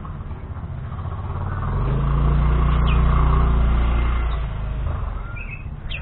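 A motor vehicle's engine passes close by, swelling to its loudest about three seconds in and then fading. A few short, high bird chirps sound over it, mostly near the end.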